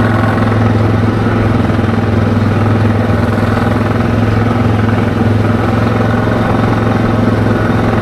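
ATV engine running at a steady cruising speed, heard from on board, a constant low hum that holds one pitch throughout.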